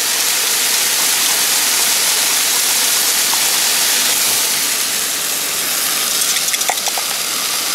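Ground beef sizzling in a frying pan on a gas camp stove: a steady, loud hiss, with a few light clicks near the end as gravy mix is poured into the pan from a mug.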